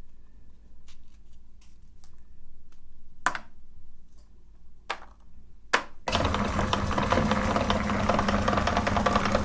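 A few light knocks and clicks, then, about six seconds in, an electric meat grinder switches on and runs steadily with a low motor hum and a dense grinding rattle as it grinds Oreo cookies.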